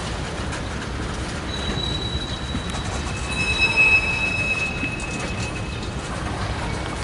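Freight train of tank cars rolling slowly past, its steel wheels squealing in thin high tones over a steady rumble. One squeal starts about a second and a half in, and a lower one takes over around the middle and fades near the end.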